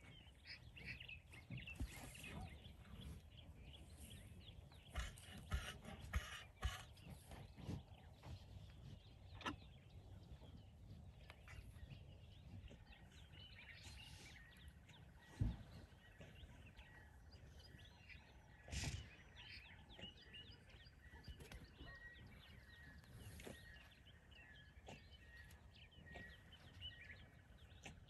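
Quiet outdoor ambience with faint bird chirps and a faint steady high tone through the second half. A few soft knocks and rustles, the loudest about halfway through and again a few seconds later.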